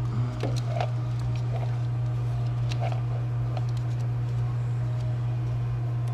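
Light clicks and rattles of plastic wiring-harness connectors being handled and fitted, most of them in the first second or so, over a steady low hum.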